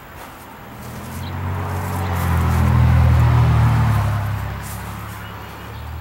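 A motor vehicle driving past: a low engine rumble with road noise that grows louder to a peak about three seconds in, then fades away.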